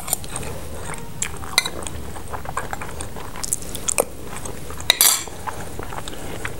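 A spoon clinking and scraping against a plate as pilao rice is served and eaten, in light scattered taps with a couple of sharper clinks about four and five seconds in.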